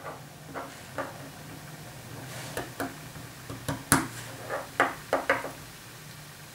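Light clicks and taps of a small plastic Nendoroid figure and its parts being handled and set on a tabletop: a dozen or so short knocks, the loudest about four seconds in, over a low steady hum.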